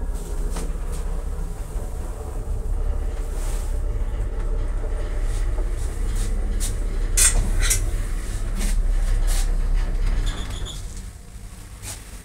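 Electric passenger lift cab travelling in its shaft: a steady low rumble with a few clicks and knocks, the rumble dying away just past ten seconds in as the cab slows and stops at a floor.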